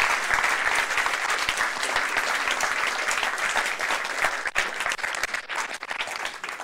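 Audience applauding, a dense, steady clapping that thins slightly near the end.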